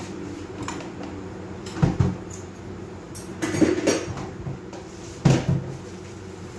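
Kitchen clatter: dishes and kitchenware knocked and handled at the counter, in three bursts: about two seconds in, a cluster around the middle, and again near the end.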